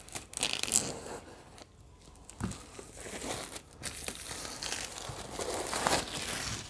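Clear plastic shrink wrap being torn and pulled off a board game box, crinkling in irregular bursts.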